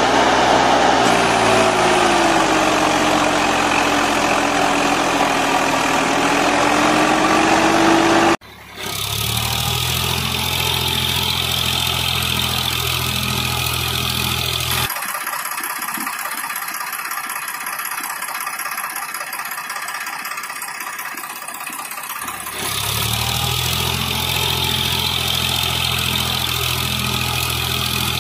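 Tractor engine running, heard in edited pieces with abrupt cuts. For the first eight seconds its pitch dips and then climbs again; after a sudden cut it settles into a steady low idle that gives way to a different, thinner sound for several seconds and then comes back.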